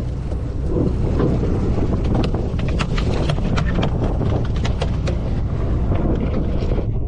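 Sportfishing boat's engine rumbling steadily, with wind buffeting the microphone. Over it come many quick, irregular clicks and taps from about a second in until near the end.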